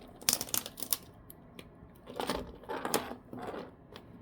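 Small plastic clicks and crackles from a freshly 3D-printed articulated dragon being handled, a quick run of sharp clicks in the first second and rustly crackling later.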